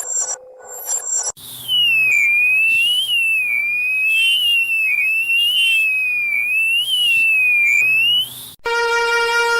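Emergency alert tones played in reverse: after a pattern of electronic beeps ends about a second in, a single high electronic tone slides up and down, about once a second, for some seven seconds. Near the end it cuts off and a different alert starts, a chord of steady horn-like tones.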